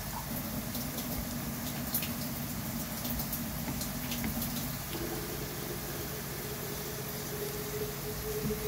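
Sliced garlic frying in hot oil in a pan: a steady bubbling sizzle with scattered small crackles. A steady low hum runs underneath and steps up in pitch about halfway through.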